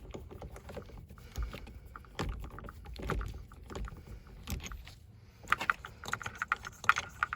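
Socket wrench with a 21 mm socket working loose the steering wheel's centre bolt: scattered metal knocks and clicks, then a quicker run of clicks in the last two seconds.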